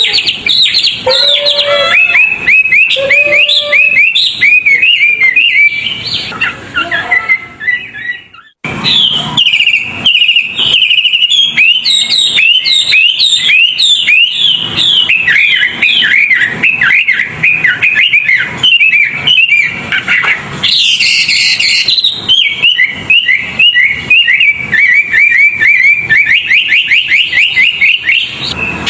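Recorded songbird song used as masteran training audio: a fast, unbroken string of rapid whistled chirps and trills, breaking off briefly about eight seconds in and then resuming.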